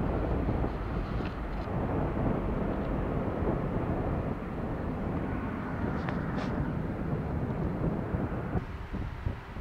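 Twin-engine Airbus A320-family airliner climbing out after takeoff, its jet engines at takeoff thrust making a steady, deep rumble. The sound cuts off abruptly near the end.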